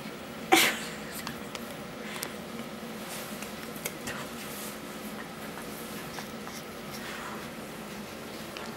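Golden retriever puppies moving about on cloth bedding: soft rustling and small scratchy clicks, with one sharp short sound about half a second in, over a low steady room hum.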